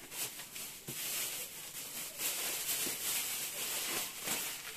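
Clear plastic wrapping crinkling and rustling as a packaged toy is handled, a continuous crackle with irregular sharper crackles.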